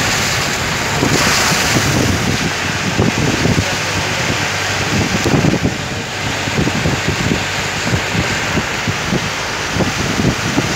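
Wind buffeting the phone's microphone: a loud rushing hiss with irregular low thumps throughout.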